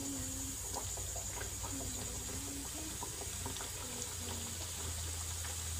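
Cut dough biscuits deep-frying in hot oil in a kadai: a steady sizzle with many small crackles.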